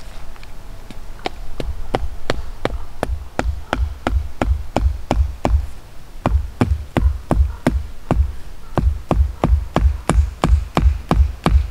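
A wooden baton knocking a tent peg into forest ground to stake down a canvas shelter: a steady run of knocks, about three a second, each with a low thud, and a brief pause about halfway through.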